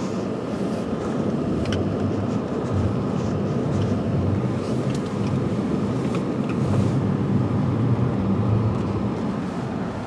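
Car driving across a snow-covered lot, heard from inside the cabin: a steady low rumble of engine and tyres.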